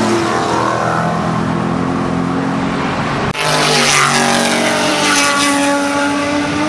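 Race car engines running hard on a circuit straight. About halfway through the sound breaks off suddenly and another car comes in louder, its engine pitch shifting as it passes.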